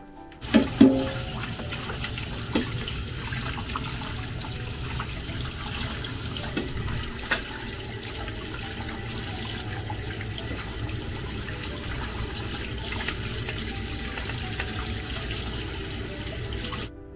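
Kitchen tap running steadily into a sink as dishes are rinsed under it, with a few sharp clinks of the dishes being handled, the loudest just after the water starts. The water comes on suddenly about half a second in and cuts off just before the end.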